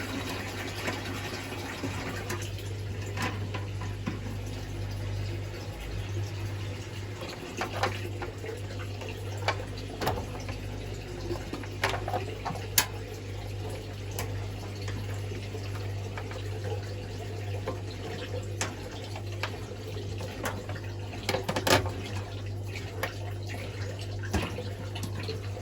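Indesit Moon SIXL145 washing machine taking in water, a steady rush with a low hum under it. Scattered sharp clicks and knocks come through it, the loudest about thirteen and twenty-two seconds in.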